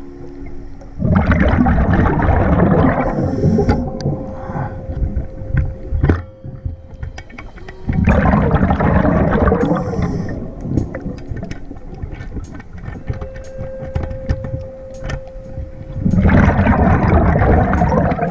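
Scuba diver breathing through a regulator underwater: three loud rushes of exhaled bubbles about seven seconds apart, with quieter bubbling, clicks and a faint steady tone between breaths.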